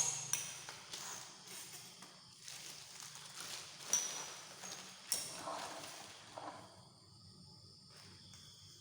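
Scattered knocks, clicks and rustling from a brush cutter's parts being handled and fitted together by hand. About seven seconds in the handling dies down, leaving steady chirping insects.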